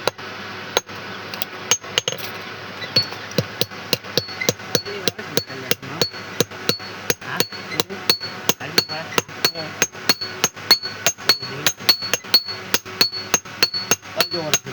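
Blacksmith's hammer striking metal on an anvil in a steady rhythm, about three blows a second, many of them with a short high ring.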